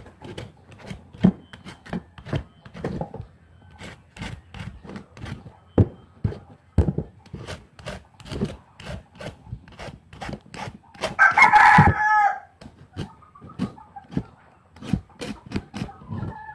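Repeated quick scraping strokes of a hand-held vegetable peeler taking the skin off a raw sweet potato, about two or three strokes a second. A rooster crows loudly about eleven seconds in, and another drawn-out call begins near the end.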